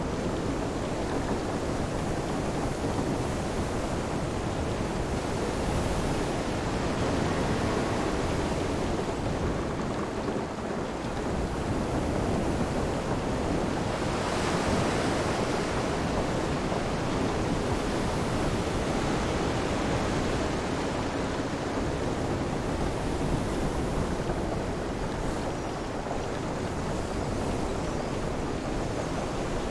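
Storm ambience: a steady rush of wind, rain and surf, swelling briefly about halfway through.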